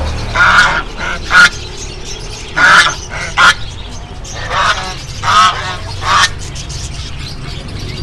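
Caged white domestic ducks quacking: about seven loud, separate calls spread through the few seconds.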